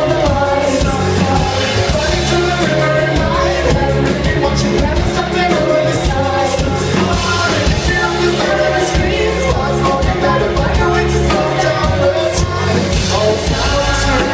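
A live band playing a rock song at full volume, with sung vocals over steady, heavy drumming.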